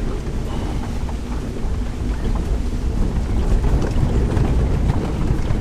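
A vehicle driving along a road: a steady low rumble of engine and tyres, with wind buffeting the microphone.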